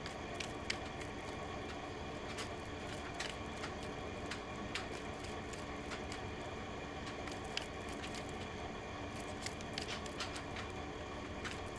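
Steady room hum with scattered light clicks and taps of tarot cards being handled.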